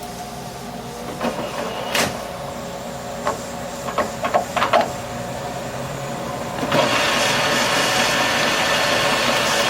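A few light metallic clicks and knocks, then a metal lathe switched on about seven seconds in and running steadily under power.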